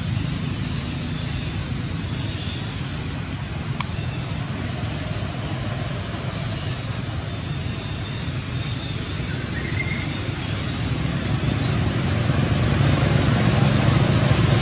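Steady motor-vehicle and traffic noise: a low engine hum over background rumble that grows louder over the last few seconds, with one short click about four seconds in.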